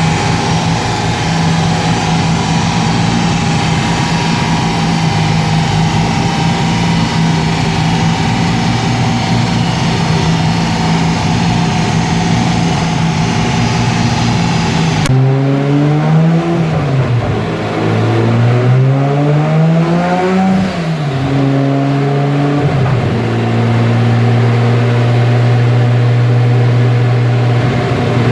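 Nissan Skyline R32 GT-R's RB26 twin-turbo straight-six running loud on a dyno, held at steady revs for about fifteen seconds. After an abrupt change it revs up and down a few times, then settles to a steady, lower engine speed.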